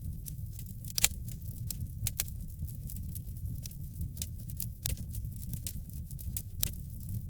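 Fire burning with a steady low rumble and irregular sharp crackles and pops, the loudest about a second in.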